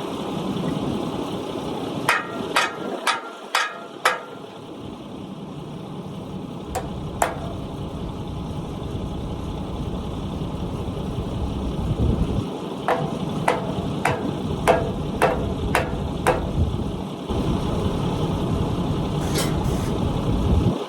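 Hammer blows ringing on the steel parts of a reel disc harrow. There is a run of five strikes about two a second, two more a few seconds later, then a run of seven, all over a steady low rumble.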